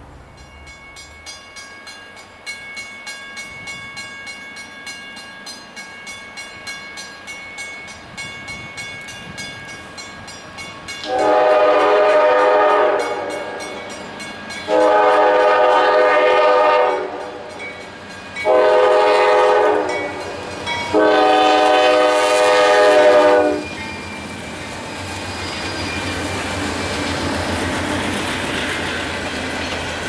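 A grade-crossing bell rings rapidly and steadily, then the horn of an approaching freight train led by a GE Dash 9-40CW diesel sounds four loud blasts, the third a little shorter: the standard signal for a grade crossing. The locomotive's rumble and the wheels on the rails then grow louder as the empty coal train arrives.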